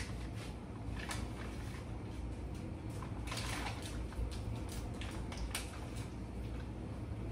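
Knife slicing through raw chicken breast on a plastic cutting board: quiet cutting with scattered light scrapes and taps, over a low steady hum.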